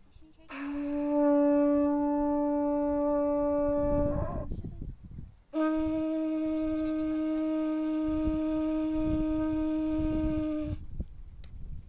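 A blown horn trumpet sounds two long, steady held notes, the first about four seconds long and bending upward as it ends, the second about five seconds long. Low rumbling runs under the second note.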